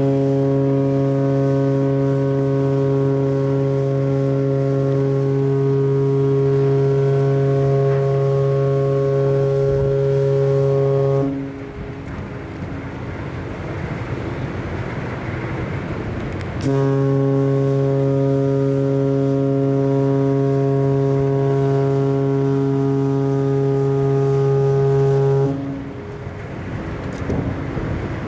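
Deep ship's whistle of the passenger-cargo ship Camellia Maru sounding long, steady blasts in farewell as the ship departs: one blast of about eleven seconds, a pause of about five seconds, a second blast of about nine seconds, and a third beginning right at the end.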